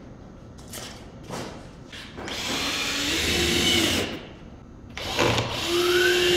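Cordless drill run twice, each burst about two seconds long, its motor whine rising as it spins up and then holding steady, as it works into extruded polystyrene foam pieces. A few light clicks come before the first burst.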